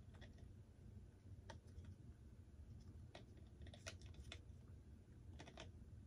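Faint, scattered clicks as a model airplane propeller is turned and fitted on its hub by hand, bunched about halfway through and again near the end, over near-silent room tone.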